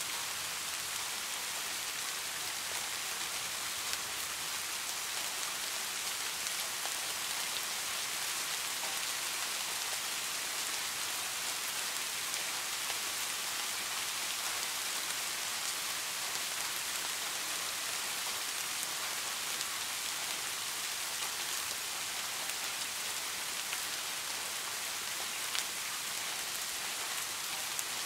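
Steady rain falling, an even hiss with the odd sharper drop tick.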